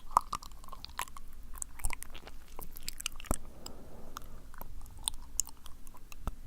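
Close-up wet mouth sounds: sticky lip smacks and tongue clicks coming as many short, irregular clicks.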